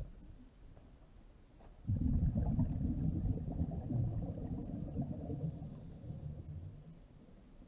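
Underwater, a diver's exhaled breath bubbling up: a low bubbling rush that starts suddenly about two seconds in and fades out near the end.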